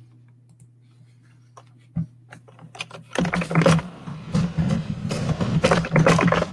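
Fast typing on a computer keyboard: a few stray key clicks, then from about three seconds in a rapid, dense run of keystrokes. A low steady hum lies underneath.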